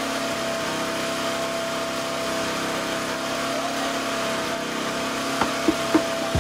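Small petrol generator powering electrofishing gear, running steadily with an even hum. A few light knocks come near the end.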